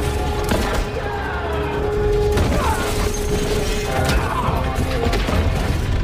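Film soundtrack music with a held note, cut through by repeated booms and crashing impacts.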